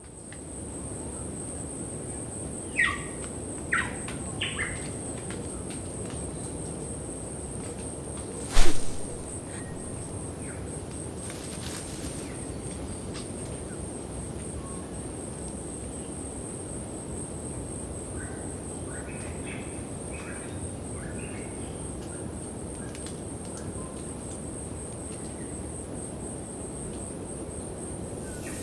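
Jungle ambience: a steady, rapidly pulsing high insect trill over a low hiss, with bird chirps a few times near the start and again past the middle. A single loud sharp snap about eight and a half seconds in.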